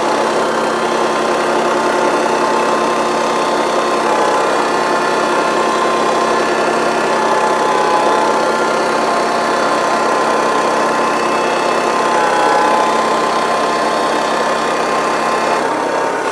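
A sawmill's engine running at a steady speed, with an even hum and a steady whine.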